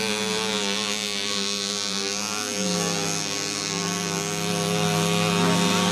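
Several small two-stroke moped engines buzzing together, their pitches wavering slightly up and down.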